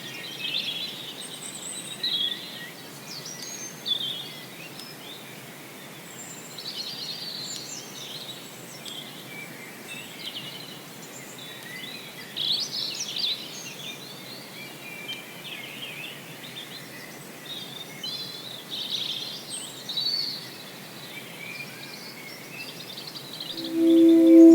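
Several songbirds calling and singing at once: many short, varied chirps and trills over a faint steady hiss. Near the end, music with long held tones comes in.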